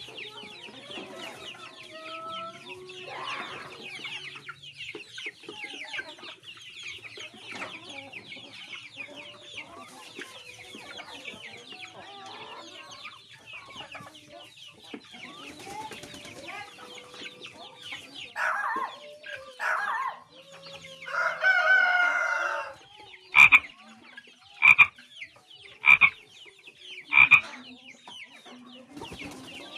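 A flock of free-range chickens clucking and chattering, with many small calls overlapping throughout. A few louder calls stand out from about eighteen seconds in, among them a drawn-out rooster crow around twenty-one seconds. Four loud, short, sharp sounds follow near the end, spaced about a second apart.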